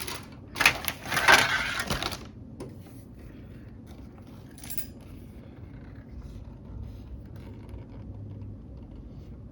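Plastic model kit parts on their sprues clattering and rattling as they are handled, a loud burst for a second or so near the start, then a few faint clicks and light handling noise.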